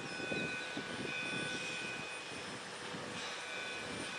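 Engines of heavy work-site machinery and vehicles running, a steady drone with uneven low rumbling and a thin steady whine above it.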